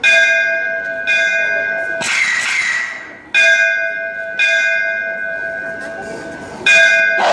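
Recorded bell sound effect struck five times in two pairs and a single, each stroke ringing out with a clear, bright tone that slowly dies away. A short swishing sound falls between the second and third strokes.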